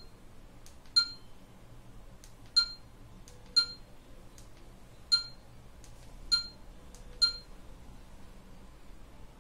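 DJI Osmo Action action camera beeping in confirmation as its touchscreen settings are tapped: six short, high electronic beeps at uneven gaps of about one to one and a half seconds.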